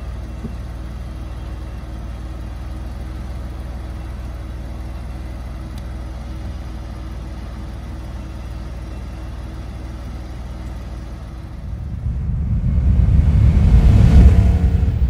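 Porsche 911 Cabriolet's flat-six idling steadily while the power convertible top folds down, with a faint steady motor hum that stops about eleven seconds in. About twelve seconds in, a loud whoosh swells up, peaks and fades away.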